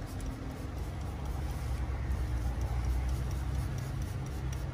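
Low, steady rumble of a running vehicle engine, with a few faint clicks.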